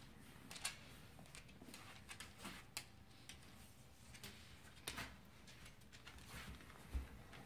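Faint, scattered clicks and taps from a cockapoo's claws on a laminate floor as it walks, a few of them sharper than the rest.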